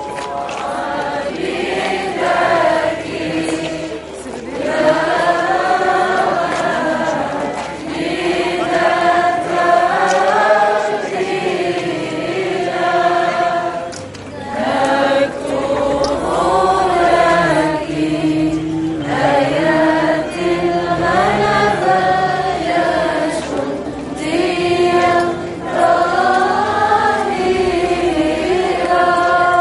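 Procession crowd singing a hymn together, phrase by phrase with short pauses between the lines.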